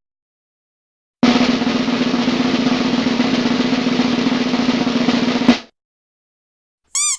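Snare drum roll sound effect, rapid even strokes held for about four seconds and ending on a single sharp hit. Near the end, a brief squeaky, wavering cartoon-style sound effect.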